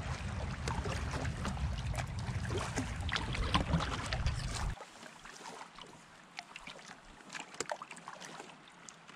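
Water dripping, trickling and lapping around a canoe being paddled, with scattered small clicks. Wind rumbles on the microphone for about the first half and cuts off suddenly, leaving only the fainter drips and lapping.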